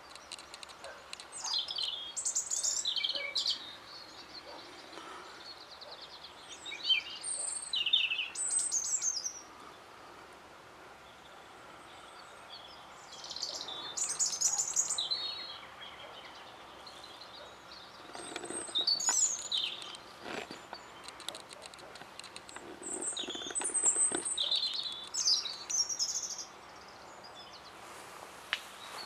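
European robin singing: short phrases of high, thin, rapidly changing warbles and trills, each a second or two long, separated by pauses of a few seconds. It is singing back to the playback of an earlier robin recording.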